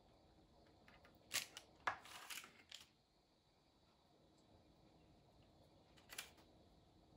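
A spoon clicking and clattering lightly against a ceramic bowl as teriyaki sauce is spooned over chicken pieces. There is a quick cluster of clicks about a second and a half in and one more click near the end, with near silence between.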